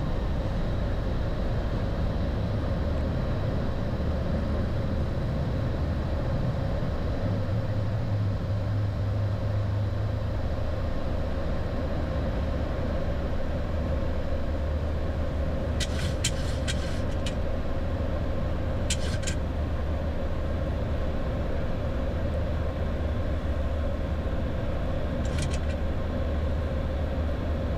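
Steady flight-deck noise of a Boeing 737-800 in its initial climb after takeoff: a continuous airflow and engine rumble with a low hum. A few short clicks come in the second half.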